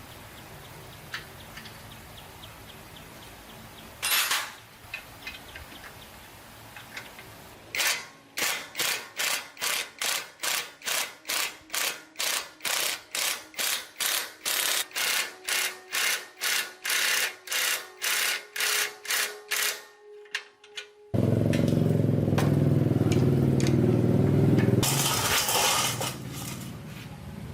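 Workshop tool sounds: rhythmic scraping strokes, about two a second, for some twelve seconds, then a loud steady machine run for about four seconds, ending in a harsher hiss.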